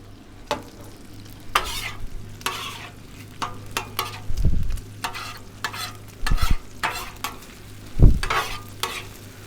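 Metal spatulas scraping and turning fried rice on a Blackstone flat-top griddle, with the rice sizzling. The strokes come at irregular intervals with sharp clicks of metal on the steel top, and a few low thuds land about four and a half, six and eight seconds in.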